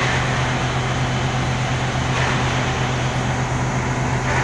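Komatsu PC400 excavator's diesel engine running steadily, a low even drone.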